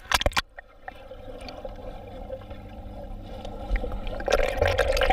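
Swimming-pool water splashing: a few sharp splashes at the start, then continuous splashing and sloshing that grows louder toward the end.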